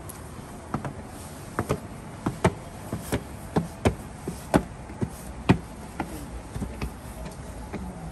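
Footsteps going up a flight of steps: a string of sharp, uneven steps, about two a second, loudest around the middle.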